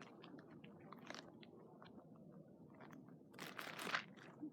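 Faint crunching of candy being chewed and bitten, with scattered small clicks. About three and a half seconds in there is a brief, louder noisy rustle.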